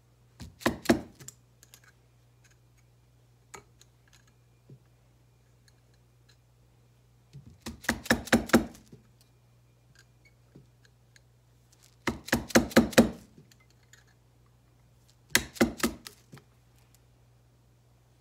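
Fork seal driver slid over the motorcycle fork tube and tapped down onto the fork seal and circlip in the fork leg to seat them. The strikes come in four quick bursts of several sharp knocks each, with pauses between the bursts.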